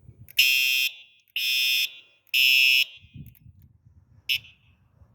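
Simplex fire alarm horn sounding three half-second blasts about a second apart, the temporal-three evacuation pattern, powered straight from a solar panel. A short single chirp from the horn follows about four seconds in.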